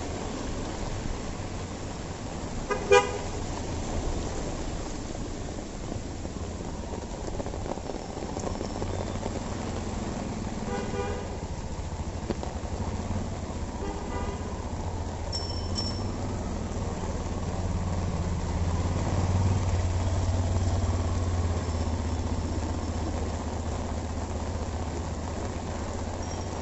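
Street traffic in the rain: a steady hiss of rain and tyres on the wet road with vehicle engines running, the engine rumble growing in the second half. Vehicle horns toot briefly, loudest about three seconds in, with two more around eleven and fourteen seconds.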